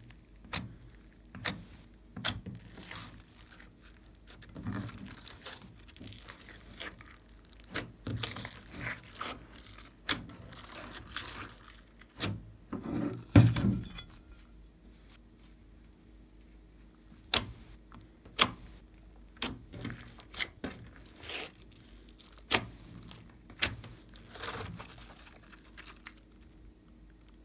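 Glossy slime being pressed, squeezed and stretched by hand: sticky squelching with many sharp clicks and pops, the loudest squelch about thirteen seconds in.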